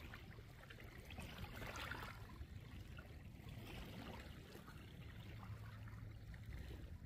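Small lake waves lapping faintly at the shore, a soft splashy hiss that swells about two seconds in and again near four seconds, over a steady low rumble.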